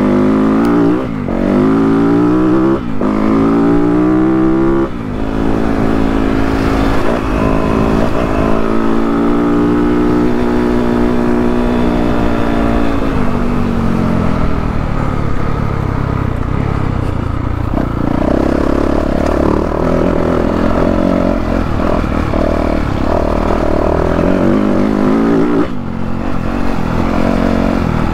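2022 Yamaha YZ450F's single-cylinder four-stroke engine under way. It revs up through the gears in the first few seconds, the pitch climbing and dropping back at each shift, then rises and eases off in a long sweep, and later holds high, steady revs.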